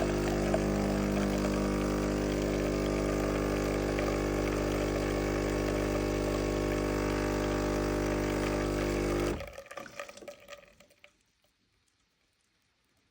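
Philips espresso machine's pump running steadily as it brews a lungo, with coffee flowing into the cup. The pump cuts off suddenly about nine seconds in, and a few faint sounds trail off after it.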